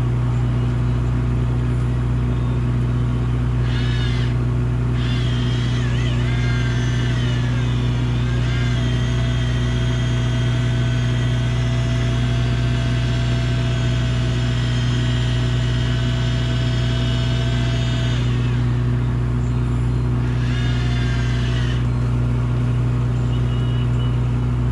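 Shimano Plemio 3000 electric reel whining as its motor winds in line with a hooked hairtail. The whine starts about four seconds in, bends in pitch a few times, holds one steady pitch for about ten seconds, then wavers again near the end. Under it runs the boat's engine as a steady low drone.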